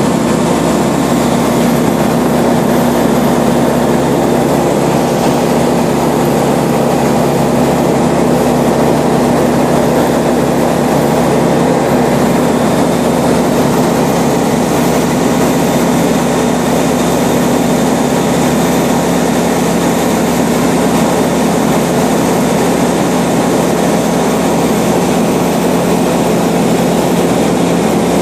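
Light aircraft's piston engine and propeller running steadily at cruise power, heard loud from inside the cockpit.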